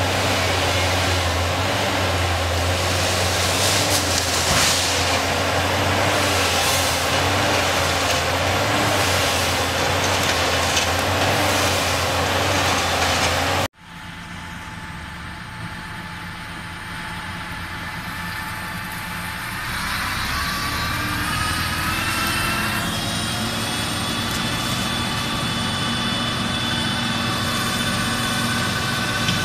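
Engine of a tracked forestry harvester running steadily. After a sudden cut about halfway through, a tractor-mounted Zappator flail mower runs with a steady whine, quieter at first and louder a few seconds later.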